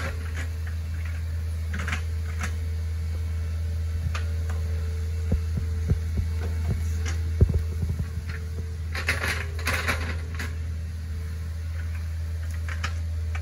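Hitachi ZX48U mini excavator's diesel engine running steadily under load while the bucket digs out a ditch. A few sharp knocks come from the bucket working in the trench, with a short burst of clattering about nine to ten seconds in.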